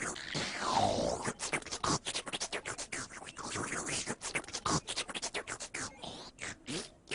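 Rapid, choppy scratch-style sounds with a falling swoop about a second in, like turntable scratching cut into a rap track.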